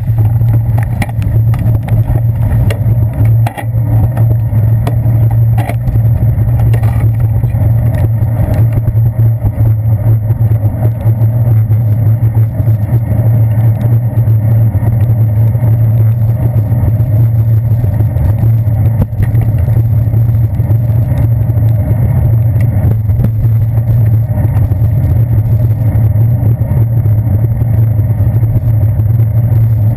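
Steady loud low rumble of a bicycle riding on wet city pavement, picked up through a handlebar-mounted GoPro Hero 2 in its housing: wind and road vibration, with a few sharp clicks in the first several seconds.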